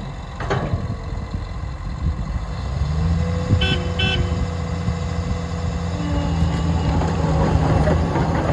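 John Deere 950J bulldozer's diesel engine running under load, getting louder about three seconds in. Two short beeps sound close together near four seconds in, and a rattling clatter builds near the end.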